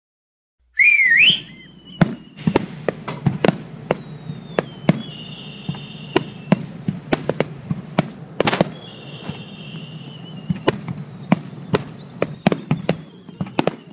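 Aerial fireworks display: a rapid, irregular series of sharp bangs and crackles from bursting shells, with faint whistling tones gliding slowly downward. A brief loud wavering whistle comes about a second in.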